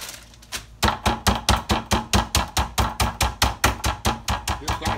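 Meat mallet pounding a ribeye steak through a plastic zip-top bag on a wooden cutting board, using the ridged face. After a short lull the blows start again under a second in and run on fast and steady, about five a second, each with a dull thump.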